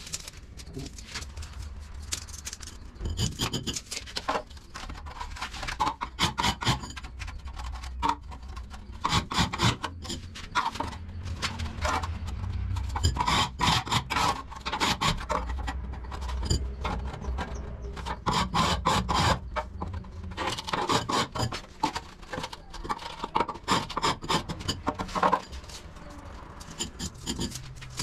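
Hand scraping and rubbing strokes on a hard surface, in irregular runs of quick strokes a few seconds long, with a low steady hum underneath.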